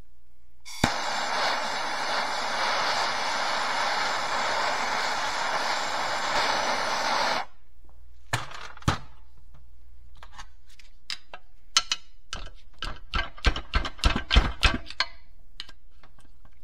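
Aerosol can of PB Blaster penetrating oil sprayed in one long hiss of about six and a half seconds, soaking a seized pin to loosen it. Then a string of irregular sharp taps and clicks as tools work at the pin.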